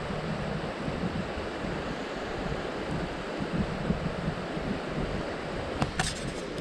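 Steady rush of a mountain creek flowing over rocks, with a few short clicks about six seconds in.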